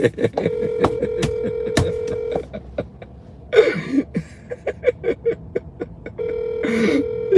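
Telephone ringback tone heard through a phone's speakerphone while a call waits to connect: two rings of about two seconds each, some four seconds apart. A man laughs between them.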